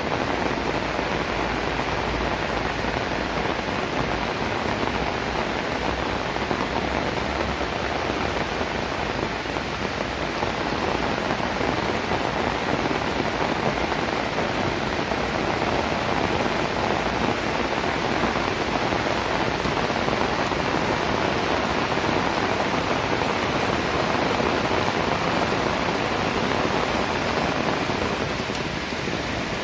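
Heavy rain falling steadily: a dense, even hiss of drops with no let-up, easing slightly near the end.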